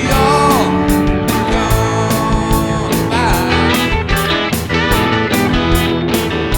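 Rock music with a steady beat, about two and a half hits a second, under sustained instrument tones with a few bending notes.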